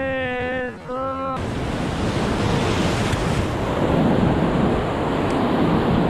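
Sea surf washing and wind buffeting the microphone, a steady rushing noise. In the first second a held pitched tone sounds, with a second short note, and it cuts off abruptly about a second in.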